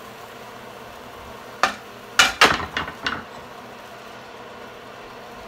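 Kitchen utensils clattering as a wooden spoon is grabbed: a single knock about a second and a half in, then a quick run of rattling knocks lasting about a second.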